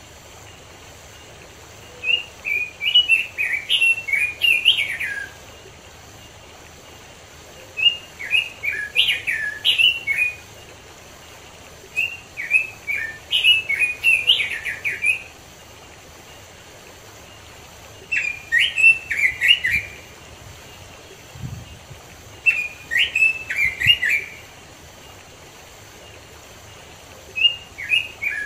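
Male red-billed leiothrix (Pekin robin) singing: six bouts of quick, fluting warbled phrases, each two to three seconds long with a few seconds' pause between, over a steady faint rush of stream water.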